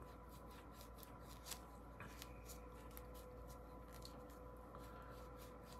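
Near silence with scattered faint, light clicks and ticks of small folding-knife parts being handled as the knife's pivot goes back in, over a faint steady hum.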